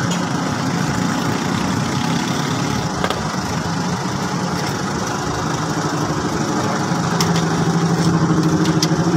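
An engine running steadily nearby, with a low hum that gets a little louder near the end. A few light metallic clicks come over it, about three seconds in and twice near the end.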